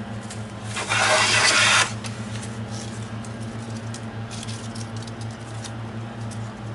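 Stanley No. 7 jointer plane taking one stroke along a board, its iron shearing a shaving with a hiss of about a second. Faint knocks and scrapes of the plane and wood follow.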